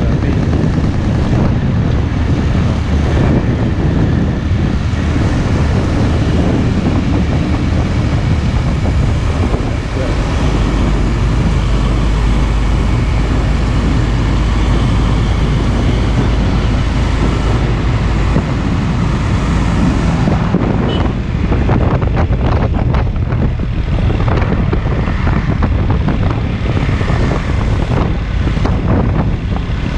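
Loud road noise of heavy trucks passing on a highway, steady at first and turning choppy about two-thirds of the way through.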